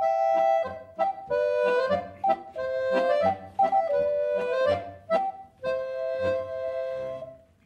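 A free-reed instrument playing a short tune in two-note chords, ending on a long held chord that fades away near the end.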